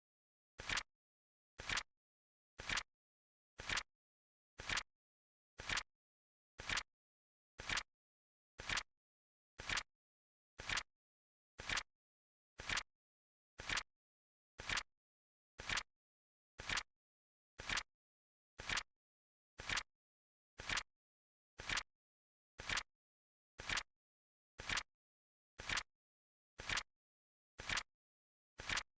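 Flip-clock card flip sound effect ticking off the seconds: one short, crisp double click every second, evenly spaced, with silence between.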